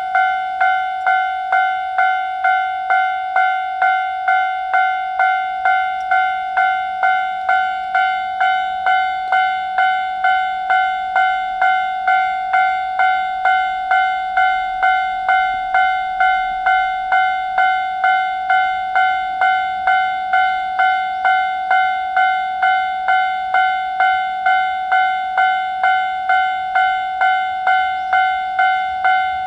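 Japanese railway level-crossing warning bell ringing steadily, a single bright ding repeated at an even pace of just under two strikes a second, the alarm that sounds while a train approaches and passes.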